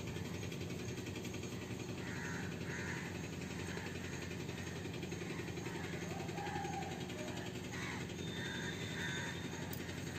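Steady outdoor background rumble with repeated short, harsh bird calls scattered through it.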